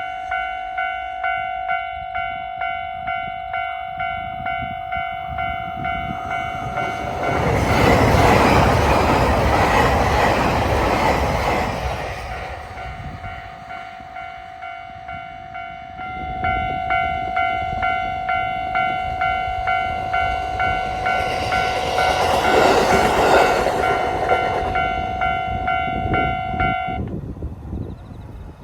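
Japanese level-crossing warning bell ringing its electronic clang at about two strokes a second while a train rumbles over the crossing. The bell falls silent, starts again a few seconds later as a second train passes, and stops near the end.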